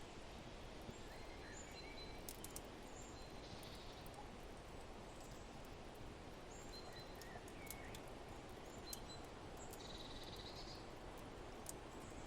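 Faint forest ambience: a steady soft wind-like hiss with short, high bird chirps every second or so. A few sharp crackles from the fireplace stand out, twice about two seconds in and again near the end.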